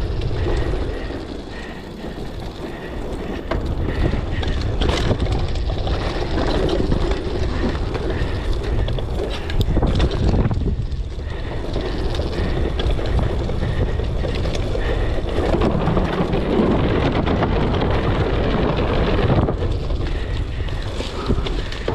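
Mountain bike descending a wet, slippery dirt trail: wind buffeting the microphone over the rattle of the bike and tyres, with a few sharper knocks from bumps.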